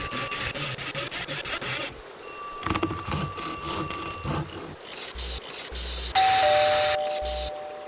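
A string of short, unrelated sound effects cut one after another: two stretches of steady ringing tones, then noisy hits with low thuds, and near the end a two-note doorbell chime, a higher note followed by a lower one.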